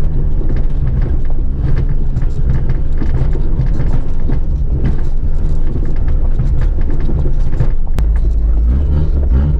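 Small 4x4's engine running as it drives over a rough, rocky track, with repeated knocks and crunches of tyres and suspension on stones. A sharp knock comes near the end.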